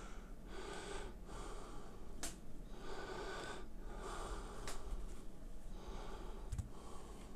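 A man breathing softly and audibly close to the microphone, about five slow breaths, with three light clicks of fingertip taps on a phone's touchscreen.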